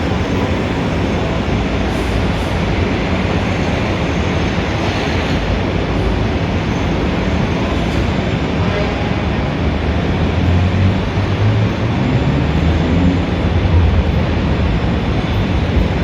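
Busy city street traffic: a steady wash of engines and tyres. About ten seconds in, a heavier engine rumble swells, its low pitch slowly rising.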